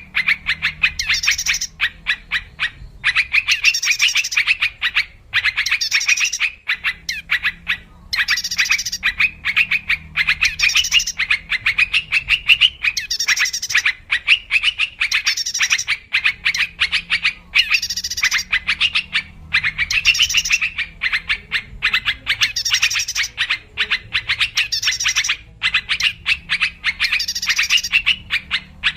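Yellow-vented bulbul (trucuk) song, as played in a recording used as a lure call: phrases of rapid chattering notes about a second long, repeated one after another with short breaks.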